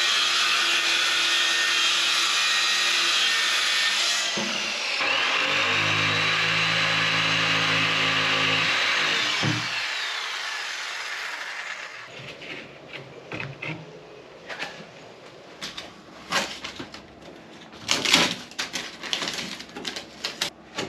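A power tool running steadily. About four seconds in it dips and winds back up, and around ten seconds in it spins down and stops. Scattered knocks and clicks of hand work on the woodwork follow.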